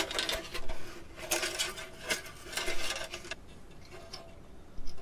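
Clinks and scrapes of small hard objects being handled while the string and its carved-bone stop are fitted on a gourd-and-bamboo instrument, going quiet about three seconds in, with one more click near the end.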